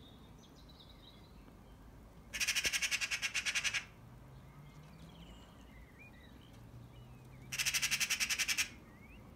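Eurasian magpie chattering twice: two harsh rattling bursts of rapid clacks, the first about a second and a half long and the second about a second, near the start and near the end. It is the magpie's mobbing chatter aimed at a cat.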